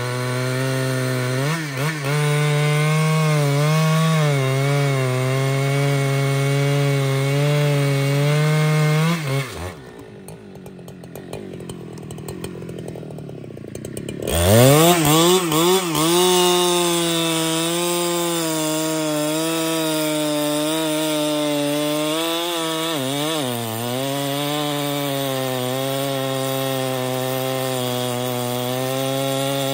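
Husqvarna 395XP two-stroke chainsaw running at full throttle, bogging slightly as it cuts through a big trembesi (rain tree) log. About a third of the way in the engine drops back and its pitch falls for a few seconds. Then it revs up again and cuts on steadily.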